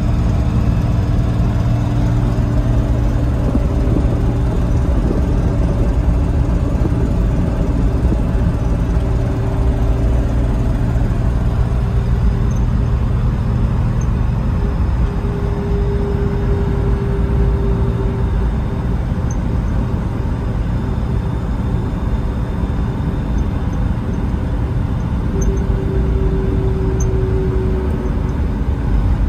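1985 Toyota Land Cruiser driving at a steady road speed, heard from inside the cab: a steady low engine drone mixed with road noise. A higher whine comes in for a few seconds about halfway through and again near the end.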